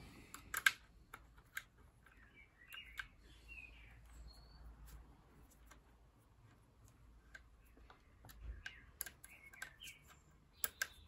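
Faint, scattered clicks and ticks of a hand screwdriver and small metal parts working screws into the plastic housing of a cordless nail gun, with a few sharper clicks about half a second in and near the end.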